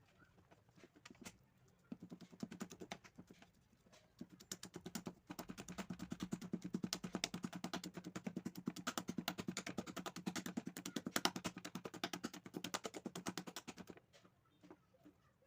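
Cake batter being beaten in a bowl: a fast, even run of clicks as the beater strikes the bowl, starting about two seconds in and stopping near the end.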